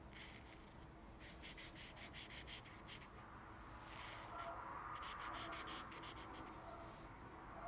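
Felt-tip marker scratching on sketchbook paper in quick short strokes, several a second, in two runs.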